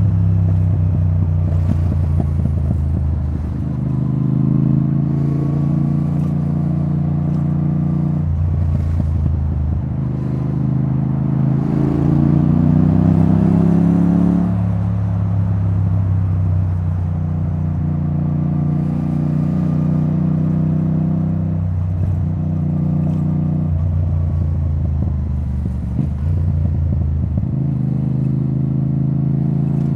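Yamaha XSR700's CP2 parallel-twin engine running through a debaffled Akrapovic titanium exhaust under a rider's throttle at freeway speed, its pitch shifting up and down several times, with one longer rising pull about halfway through.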